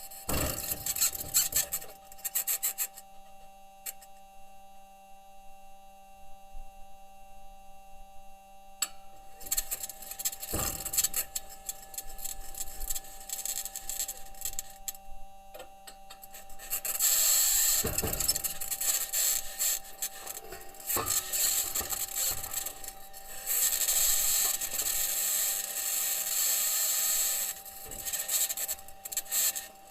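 Perseverance rover's metal wheels rolling over Martian rock, picked up by a microphone on the rover: irregular clanks, creaks and scratchy grinding over a steady hum with a faint whine. A louder, harsher scraping stretch sets in a bit past halfway and runs for several seconds.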